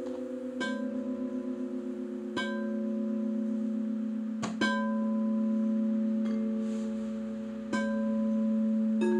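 Frosted quartz crystal singing bowls struck one after another with a mallet, about seven strikes including a quick double strike near the middle. Each strike adds a clear, long-ringing tone that keeps sounding under the next, so the bowls build up a layered, gently pulsing chord.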